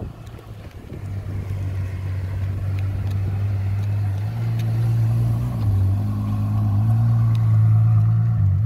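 Ferrari GTC4Lusso engine running at low revs as the car rolls slowly past, a deep steady note that grows louder as it draws near, rising slightly in pitch twice partway through.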